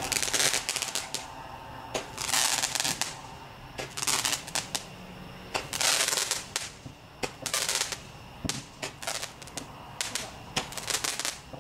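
Consumer fireworks shooting a series of glowing comets with crackling spark trails: each shot a sharp pop followed by a hissing crackle, repeating every second or two.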